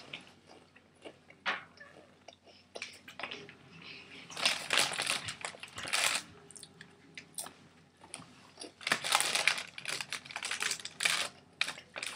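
Crisp crackling and crunching from dry noodles in a plastic bag being handled and eaten. It comes in two louder bursts, about four and nine seconds in, with scattered quieter clicks between.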